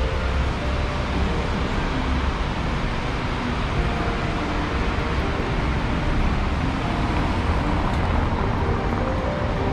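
Steady city street traffic noise, an even wash of passing vehicles with a deep rumble underneath.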